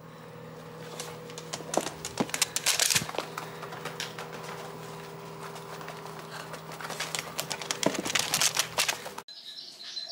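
Outdoor ambience: a steady mechanical hum holding a few fixed pitches, with two bursts of high, quick small-bird chirping, one about two seconds in and one about eight seconds in. The sound cuts off suddenly near the end.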